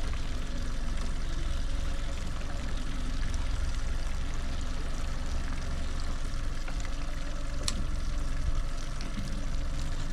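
Small 9.9 hp kicker outboard running steadily at trolling speed, with water washing past the boat's hull. A single sharp click about three-quarters of the way through.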